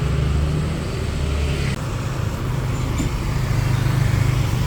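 Road traffic: a motor vehicle engine running close by, a steady low rumble whose deepest part drops away about one and a half seconds in.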